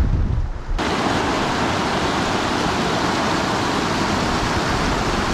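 Wind buffeting the microphone with a low rumble, which about a second in gives way abruptly to the steady rush of a small upland river tumbling over a rocky riffle, close by.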